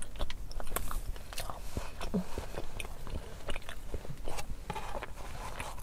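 A person chewing a mouthful of burger close to the microphone: irregular small mouth clicks and smacks.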